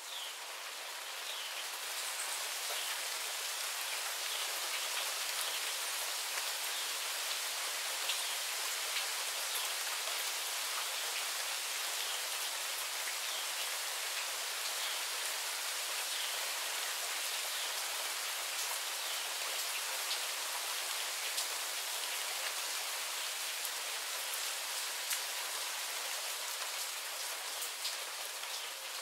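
A rain shower falling steadily, a dense hiss of raindrops that grows a little heavier over the first couple of seconds and then holds even.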